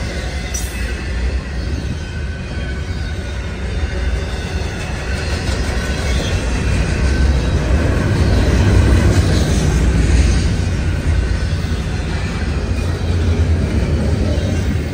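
Double-stack intermodal freight train rolling past on the nearest track: a steady rumble and clatter of well-car wheels on the rails, swelling a little about two-thirds of the way through.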